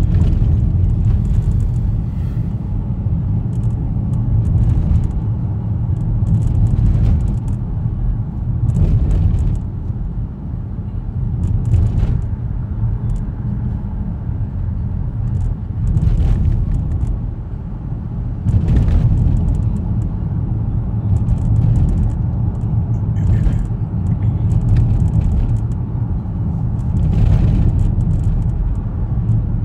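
Road noise inside a moving car's cabin: a steady low rumble of tyres and engine, with oncoming cars passing every few seconds, each a brief rise and fall.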